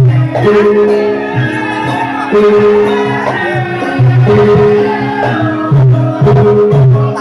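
Traditional Javanese music accompanying a tari topeng mask dance: loud, steady playing of long held notes that shift pitch every second or two.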